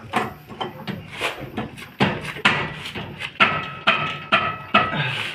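Irregular sharp metallic knocks and clicks, roughly two a second, from hand-turning the steering tie-rod adjuster under a Mahindra Bolero Maxi truck to set its wheel alignment.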